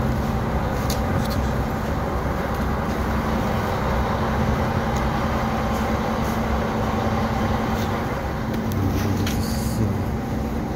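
A steady low mechanical hum and rumble, like a vehicle running, with a few light clicks scattered through it.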